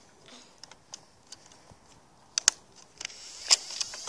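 Plastic clicks from a Nerf blaster being handled and fired, with two sharp loud clicks close together about halfway through, then a steady hiss and more clicks near the end.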